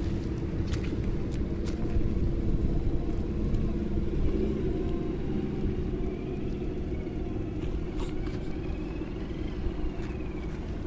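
A 1/10-scale Traxxas TRX-4 Defender RC crawler's electric motor and gear drivetrain whirring steadily as it crawls, with a fainter higher whine rising and falling in the second half and a few light clicks.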